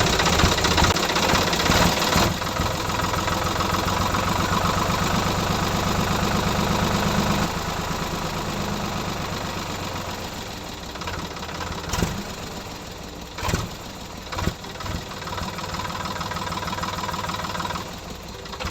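Mini tractor's small engine running steadily, its sound dropping off about seven seconds in, with a few sharp knocks in the second half.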